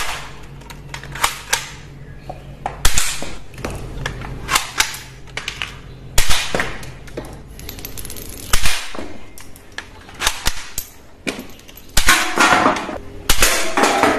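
Toy rifle being loaded, cocked and fired: a run of sharp plastic clicks and several loud snapping shots, with tin cans being knocked over and clattering near the end.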